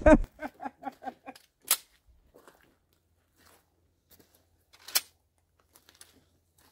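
A person's laughter trailing off, then two short sharp clicks, one about a second and a half in and one about five seconds in, from handling the action of a 1972 Ithaca Model 37 Featherlite 12-gauge pump shotgun.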